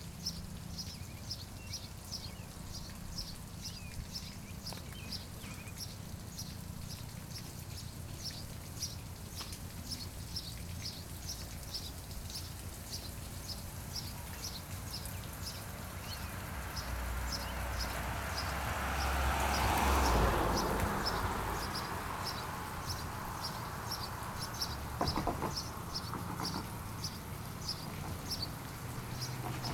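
Short high chirps from a small animal, repeated evenly about twice a second. About two-thirds of the way through, a passing vehicle swells up, becomes the loudest sound, and fades away.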